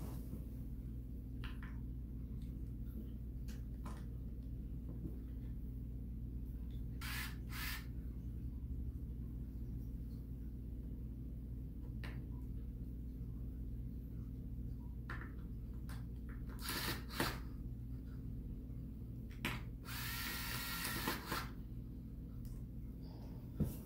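Small cordless power screwdriver whirring in one burst of about a second and a half near the end, driving a screw overhead. A few sharp clicks and knocks from handling the tool and screw come before it.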